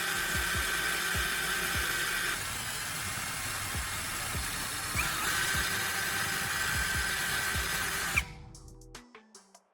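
Electric drill spinning a carbon rod against sandpaper on a wooden block: a steady motor whine with sanding hiss, dropping a little about two and a half seconds in, and cutting off about eight seconds in.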